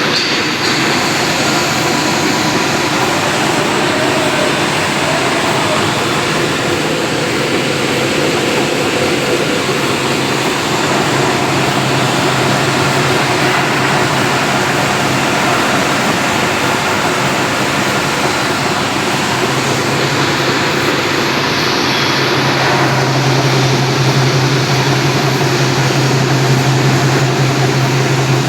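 CNC machine running: a loud, steady mechanical noise, with a low hum that comes in about eleven seconds in and sounds stronger again from about twenty seconds.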